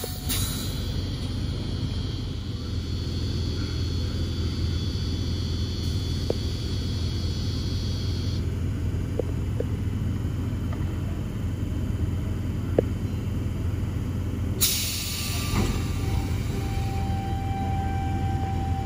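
A stationary Sydney Trains C set electric double-deck train at a platform, its onboard equipment giving a steady low hum. About fifteen seconds in, a sudden hiss starts, with a few faint clicks along the way.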